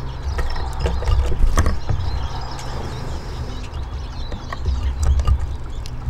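Eurasian siskins at a wooden bird table: scattered clicks and taps of pecking and landing, with faint high twittering calls, over a steady low rumble.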